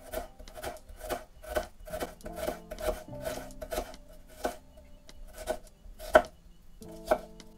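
Knife chopping on a cutting board, sharp strokes about two a second, then slowing to a few spaced strokes, the loudest about six seconds in. Soft background music underneath.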